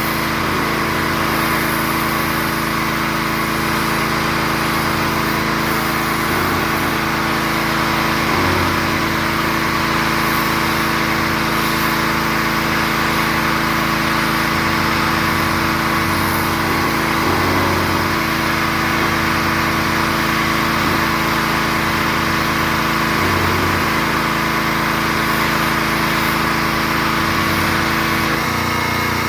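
Gas-engine pressure washer running steadily, its engine note over a broad hiss. The deepest part of the rumble drops out near the end.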